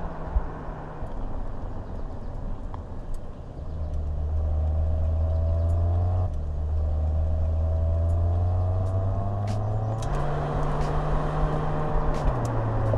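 Mercedes-AMG GLE 53's 3.0-litre turbocharged inline-six accelerating: its pitch rises, drops suddenly at an upshift about six seconds in, then rises again until about ten seconds in.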